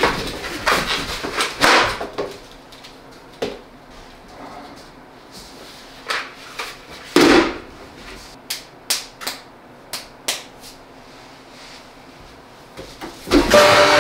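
Irregular taps, knocks and sharp clicks of hands and objects on a wooden school desk, with a foam pool-noodle sword and plastic hard hat being handled. Near the end comes a louder, denser hit as the foam sword is swung at a head, and a pitched tone starts just after it.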